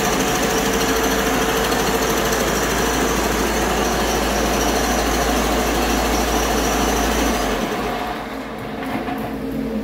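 2018 Detroit Diesel DD15 inline-six truck diesel running steadily on a test stand. Near the end its deep rumble falls away and the sound gets quieter.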